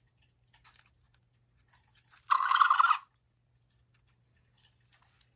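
Zhu Zhu Pets toy hamster giving one short electronic squeaking chirp, with a wavering pitch, about two seconds in and lasting under a second. Faint ticks of the toy being handled come before it.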